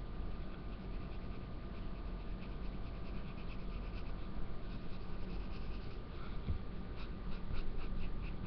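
Felt-tip marker scratching on paper in short, quick colouring strokes that come more densely near the end, over a faint steady hum.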